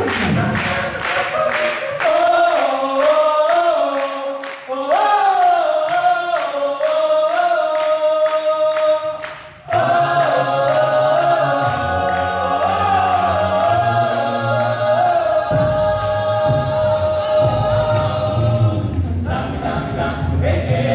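Male a cappella group singing close vocal harmonies over a sung bass line and a beatboxed rhythm. A couple of seconds in, the bass and beat drop out, leaving only the upper voices. About halfway through, after a brief dip, the low bass part comes back under held chords, with the beat stronger again near the end.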